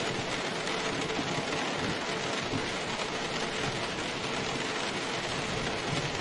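Steady rain falling: an even, continuous hiss with a low, irregular patter beneath it.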